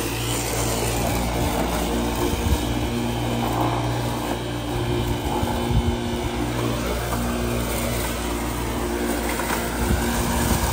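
Corded electric lawn mower running steadily, its motor humming at an even pitch.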